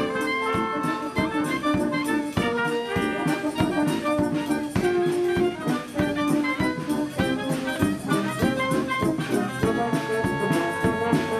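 Brass-led dance music with a steady beat.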